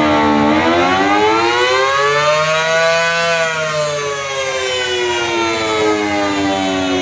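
Air-raid siren wailing: its pitch rises for about two and a half seconds, then slowly falls.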